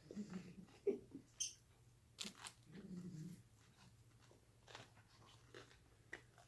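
Faint mouth noises of people chewing an extremely hot chip: wet clicks and smacks, with two short muffled moans from the burn, one near the start and one around the middle.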